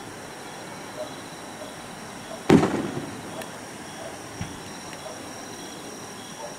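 Aerial firework shell bursting with one loud boom about two and a half seconds in, its rumble dying away over about a second. Fainter single thumps come before and after.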